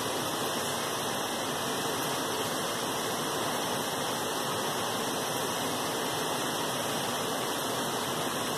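Steady, even rushing noise like falling water, with no breaks or changes.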